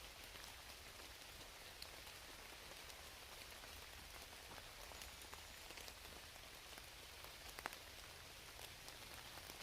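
Near silence: a faint, even outdoor hiss with a few faint scattered ticks.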